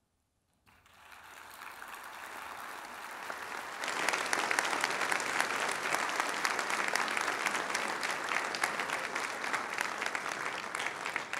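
Audience applauding. It starts after a moment of silence, builds, and becomes much louder about four seconds in.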